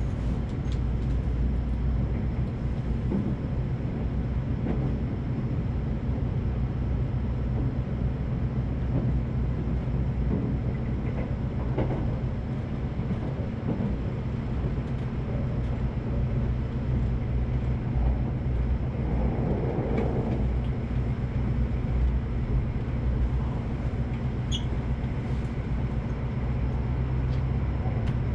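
Electric train running: a steady low rumble with an even hum and a few faint knocks. A brief high tone sounds near the end.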